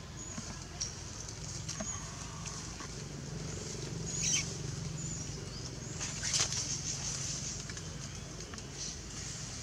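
Leaves and branches rustling as a monkey climbs a tree, with two brief, louder rustles about four and six seconds in, over a steady low hum and faint high outdoor hiss.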